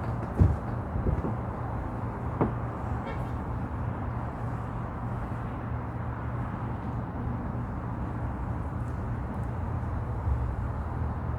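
Wind on the microphone: a steady low rumble with a few short buffeting thumps in the first couple of seconds.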